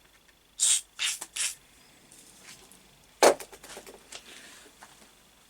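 Three quick scraping strokes on steel, then a single sharp metallic clack and a few light ticks, as parts of a lathe steady rest are handled while its threads are cleared.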